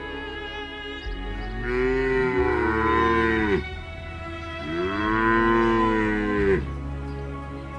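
Cattle mooing: two long moos, each rising and then falling in pitch, about two seconds in and again near five seconds, over steady background music.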